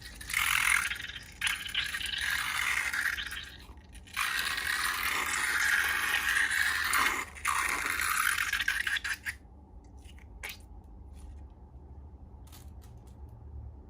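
Scraping and rattling of slime-making materials in three long stretches, broken by short pauses. After that it goes quieter, with a few sharp clicks near the end.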